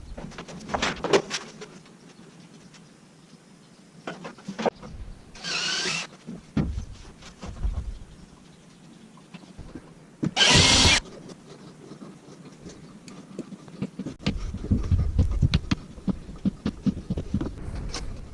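Knocks, clicks and handling clatter of hands-on installation work, with two short bursts of noise, the second much louder, and a busy stretch of knocking near the end.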